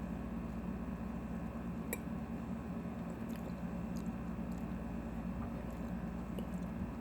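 Close-up chewing of a dressed kale salad: wet, squishy mouth sounds with a few sharp clicks, over a steady low hum.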